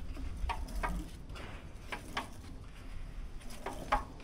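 John Deere L120 lawn tractor engine being turned over slowly by hand to check freshly reset valves. Scattered light clicks and taps from the valve train, a few in the first half and a quick cluster near the end.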